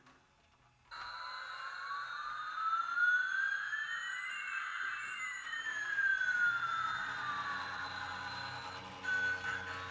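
Electronic sound effect: two smooth whistling tones, one rising and one falling in pitch, crossing about halfway, over a steady high tone. It starts suddenly about a second in, and short electronic notes begin near the end.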